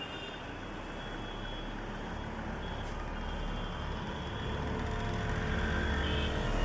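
Low rumbling drone that grows gradually louder, with a few faint steady high tones above it.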